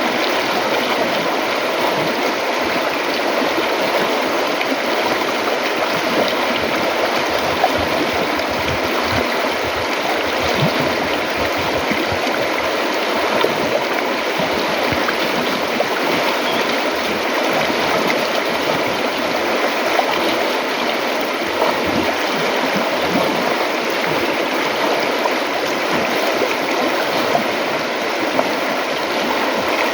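River water flowing steadily over rocks, a continuous rushing with small irregular gurgles.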